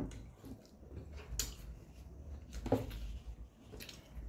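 Eating by hand: chewing and mouth sounds, with a few short clicks and scrapes as fingers work rice against a metal plate, about one a second.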